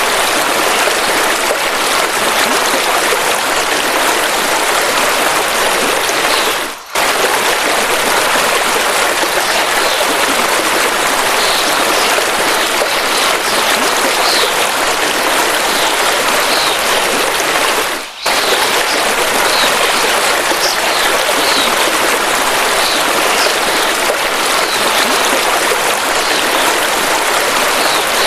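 A river's water rushing steadily, with faint short bird chirps here and there above it. The water sound dips briefly twice, at about seven and eighteen seconds in.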